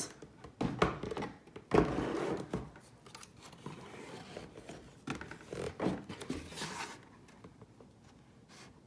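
Cardboard box and a plastic Lego shoe model being handled as the model is fitted into the box: irregular scraping and rustling with a few knocks, dying away near the end.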